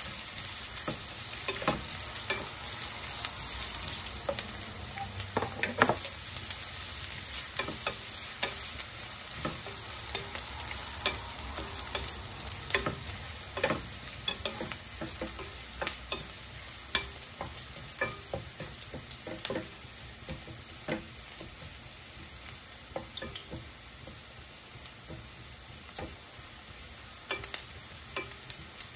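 Garlic, onion and ginger sizzling in olive oil in a stainless steel pan, stirred with a wooden spatula that knocks and scrapes against the pan at irregular moments. The sizzle grows slightly quieter over the stretch.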